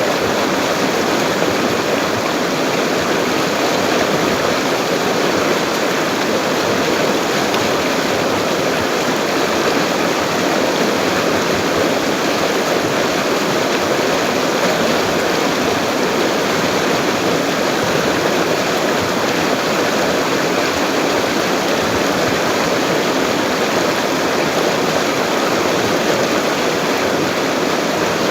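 Full, fast-flowing river: water rushing steadily in an even, unbroken stream of noise with no breaks or separate splashes.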